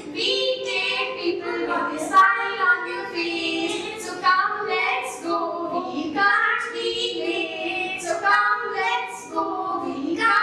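A child and a woman singing a song together.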